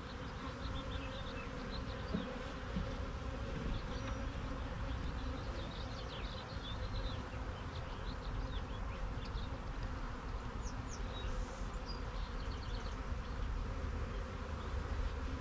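Steady hum of a mass of honeybees buzzing at an opened hive.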